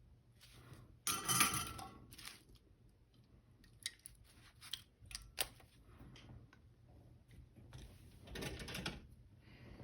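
Small tools and camera parts handled on a workbench: a few sharp clicks and two short scraping, rustling bursts, over a faint steady hum.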